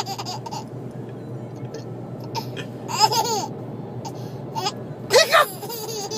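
Baby laughing in repeated bursts of giggles, with short pauses between them, over the steady low hum of the car cabin.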